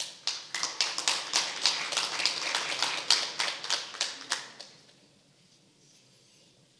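Audience applauding with distinct, scattered hand claps, dying away at around four and a half seconds in.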